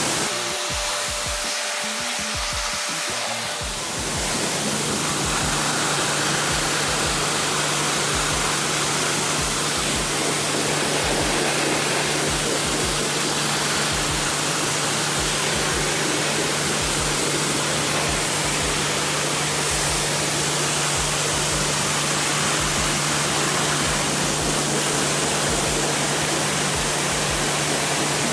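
Pressure-washer jet spraying water onto the fins of a car radiator, rinsing out packed dirt: a loud, steady hiss of spray, joined about four seconds in by a steady low hum.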